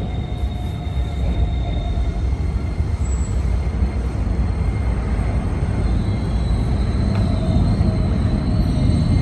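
Blue Keikyu 600 series electric train pulling into a station platform: a low rumble that grows steadily louder as it approaches, with a thin high wheel squeal coming in near the end.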